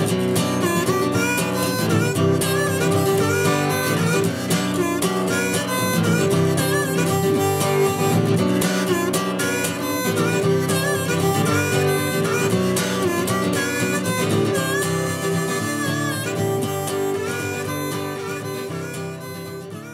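Instrumental background music led by harmonica over guitar, slowly fading out near the end.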